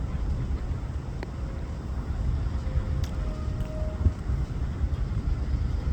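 Wind buffeting the microphone as an uneven low rumble, with a couple of faint clicks.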